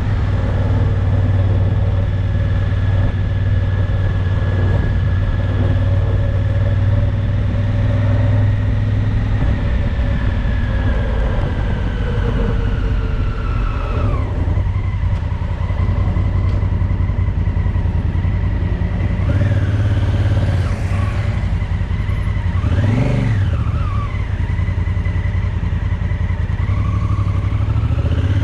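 Honda CRF1000L Africa Twin's parallel-twin engine running while riding through town streets. The engine pitch eases down about halfway through as the bike slows, and there is a brief rise and fall in pitch later on.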